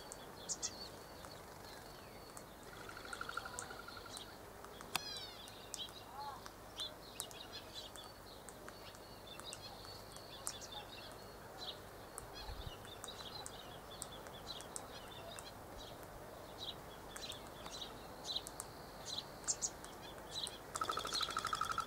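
Faint outdoor bird chirps: scattered short high twitters and clicks, with a few sweeping calls about five seconds in. A short buzz comes about three seconds in and again near the end.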